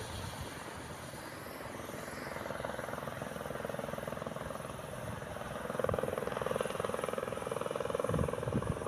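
Airbus H130 helicopter running, its rotor giving a steady fast beat that grows louder about six seconds in.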